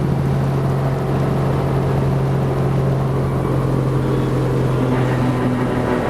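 Helicopter's engine and rotors running with a steady low hum, which weakens near the end.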